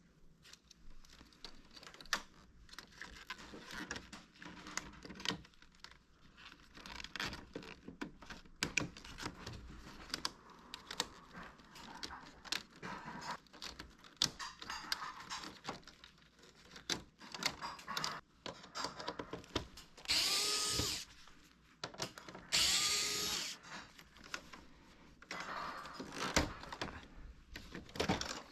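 Plastic parts of an air conditioner indoor unit clicking and knocking as they are handled and unclipped. About two-thirds of the way in, an electric screwdriver whirs in two short runs of about a second each.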